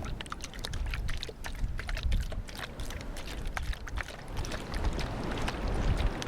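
Strong wind buffeting the microphone by the sea, a steady low rumble, with a dense, irregular crackle of sharp clicks over it.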